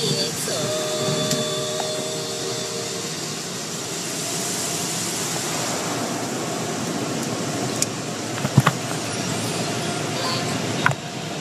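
Steady rushing noise of car wash equipment, with a few short sharp knocks towards the end.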